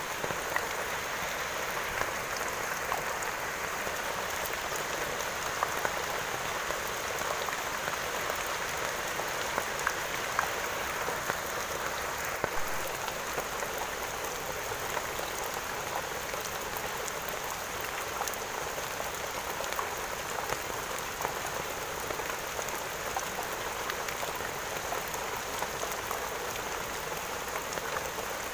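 Steady rain falling, with scattered louder drops ticking through the steady patter.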